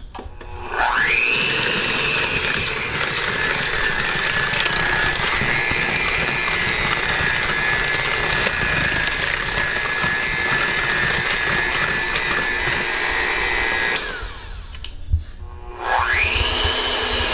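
Cuisinart electric hand mixer beating cookie dough in a bowl: it spins up with a rising whine, settles into a steady lower whine, stops about fourteen seconds in, then starts up again with the same rising whine near the end.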